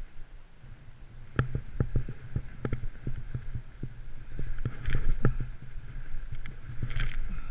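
Riding fast through deep powder snow, heard from a body-mounted camera: a steady low wind rumble on the microphone and the swish of snow, with many sharp knocks and taps from the gear. The knocks come thicker about two, five and seven seconds in.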